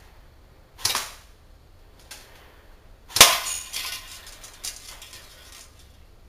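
Cyma CM.048SU electric airsoft rifle (an AKMSU replica) firing BBs: a short burst about a second in, then a louder shot about three seconds in followed by a tail of smaller clicks and rattles.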